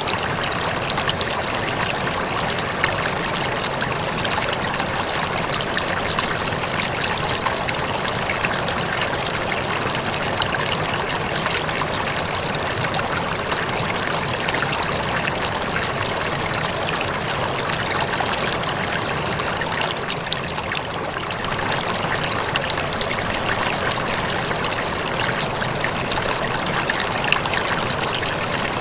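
Steady trickle and splash of water running into an aquarium, as from its filter outflow.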